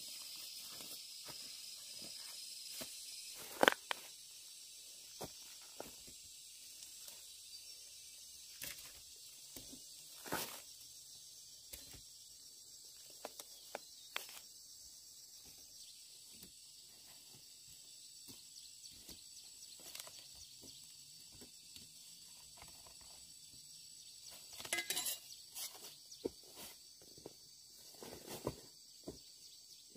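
A steady high insect drone with scattered rustles, clicks and knocks. The loudest is a sharp knock about four seconds in, and there is a short cluster of them near the end.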